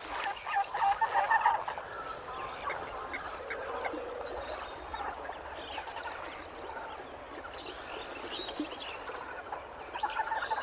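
A flock of birds calling at once, with many short overlapping calls that are busiest and loudest in the first couple of seconds and then carry on more thinly.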